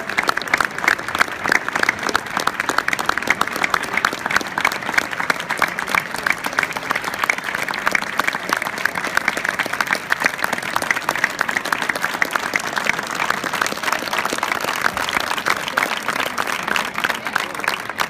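Large audience applauding: dense, steady clapping from many hands.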